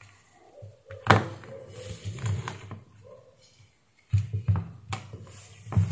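Handling noise: several sharp knocks and clicks with dull thuds and rustling as a small transformer power supply board and multimeter test leads are picked up and moved about on a workbench, the first loud knock about a second in and a cluster of knocks near the end.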